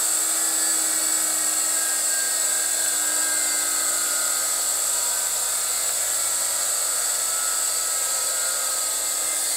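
AC motor run from a variable-frequency drive, giving a steady high-pitched electrical whine over a hum that holds level throughout.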